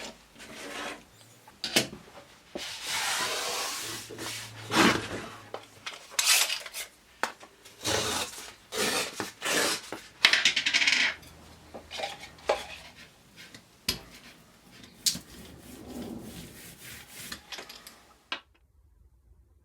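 Printmaking tools working on a hard surface: a string of scrapes and rubbing strokes mixed with sharp metallic clinks and taps, stopping abruptly near the end.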